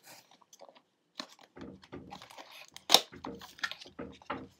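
Packaging being handled: cardboard and plastic rustling and crinkling as boxed lens items are lifted out of a shipping box, with irregular small ticks and one sharp click about three seconds in.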